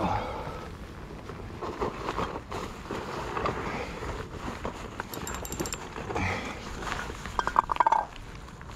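Fishing reel working during the fight with a hooked cod, with a short run of rapid, loud clicks near the end.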